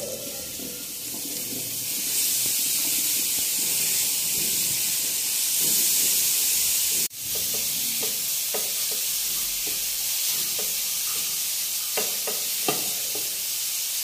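Grated carrots and chopped onion sizzling in hot oil in a non-stick frying pan. In the second half a spatula scrapes and stirs them in short strokes. The sizzle breaks off briefly about halfway.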